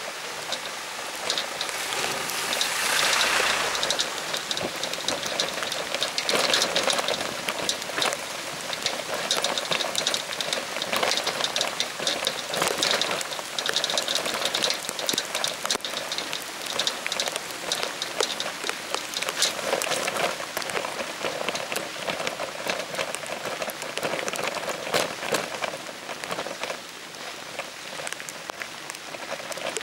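Rain falling steadily, with many separate drops ticking sharply on a surface close by. It grows heavier for a few seconds now and then.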